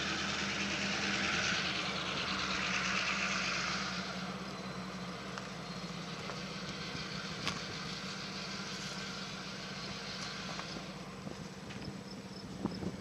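A steady low engine hum under a hiss that eases off after about four seconds.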